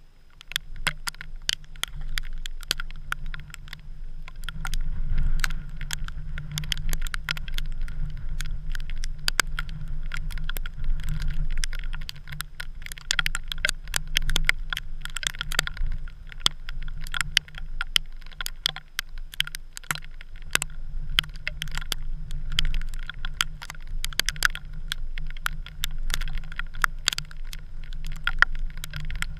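An engine running steadily under a constant patter of sharp clicks and rattles.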